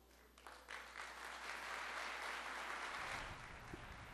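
Audience applauding: a few scattered claps at first, quickly joining into steady applause.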